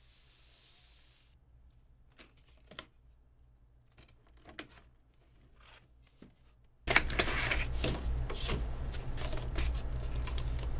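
Cardboard doll boxes and their packaging being handled and moved: at first a few faint knocks and rustles, then about seven seconds in, louder close rustling and scraping of the boxes with frequent small knocks.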